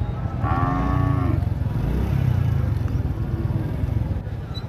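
Cattle mooing: one call about a second long, starting about half a second in. Under it runs the steady low rumble of motorcycle and rickshaw engines and market bustle.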